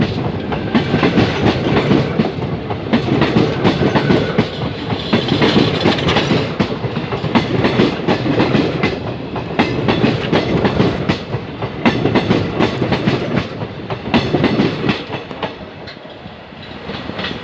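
Passenger coaches of an Indian Railways superfast express passing at speed, their wheels clattering over the rail joints in a steady rattle. The sound fades over the last couple of seconds as the train draws away.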